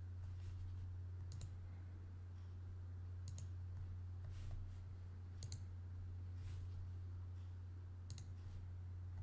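Scattered single clicks of a computer mouse and keyboard, about seven over several seconds, over a steady low electrical hum.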